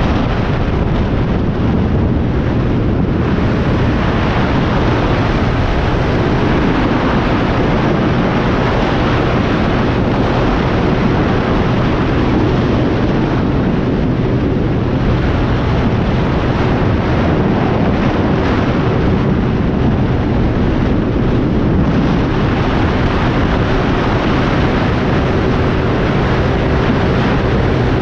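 Motorcycle engine running at a steady cruising speed, buried under heavy wind rush on the microphone.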